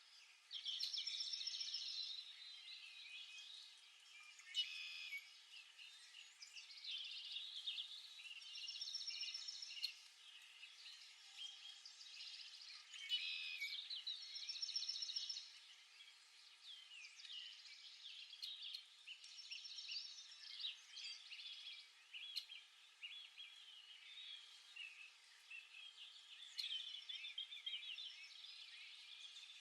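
Several songbirds chirping and calling over one another. One bird repeats a bright, trilled song phrase several times.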